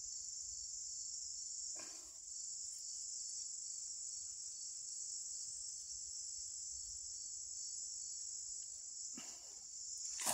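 Steady high-pitched chorus of insects in the grass, with two brief soft rustles, one about two seconds in and one near the end.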